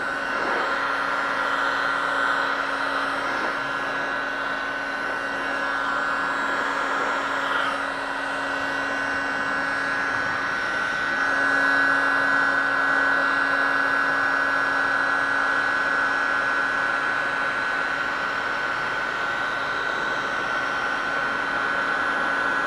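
Electric heat gun running steadily, its fan giving a constant whine over a rushing blow of hot air as it is swept over a plastic bumper cover. It grows a little louder about eleven seconds in.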